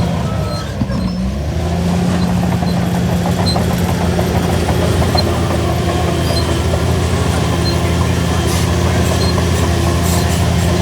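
Shantui DH17C3 bulldozer's diesel engine running steadily while working; its pitch and level sag briefly about a second in, then pick back up and hold.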